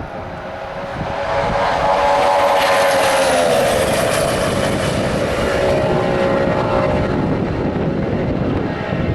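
A 2014 Formula One car's 1.6-litre turbocharged V6 hybrid engine passing at speed. Its note builds, is loudest about two to three seconds in, then drops in pitch as it goes by and carries on lower and fainter.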